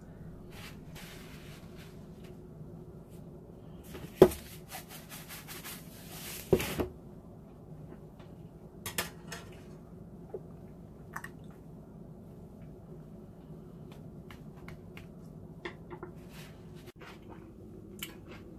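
Kitchen handling sounds over a steady low hum: a sharp knock about four seconds in, the loudest sound, then a couple of seconds of rustling noise with a second knock, followed by scattered light clicks and taps.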